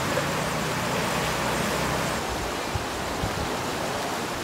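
Steady rushing noise of a river in flood under heavy rain, a little quieter from about two seconds in.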